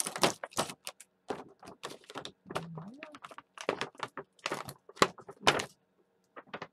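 Stiff clear plastic packaging being pulled and prised off a plastic tray: a run of irregular crinkles, snaps and small knocks that thins out near the end.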